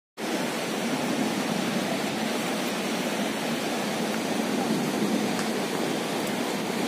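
Surf from a rough, monsoon-whipped sea washing onto the shore, a steady rushing noise that holds level throughout.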